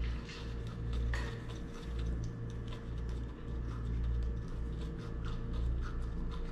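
A kitten's claws scratch at and catch on a rough wooden table leg, making a run of small, irregular ticks and scrapes over a steady low hum.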